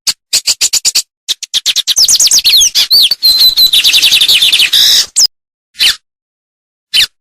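A songbird singing: a quick run of short sharp notes, then a dense, fast string of falling whistles with a held high note in the middle, ending in a few scattered single calls.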